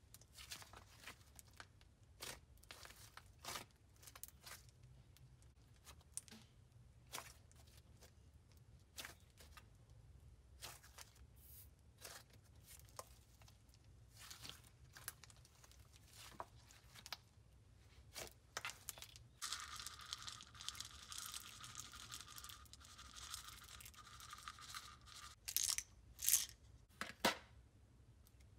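Thick pink slime stretched and pulled apart by hand, giving soft crackles and small tearing pops. Past the middle there are a few seconds of steady fine crackling, then a few louder pops near the end.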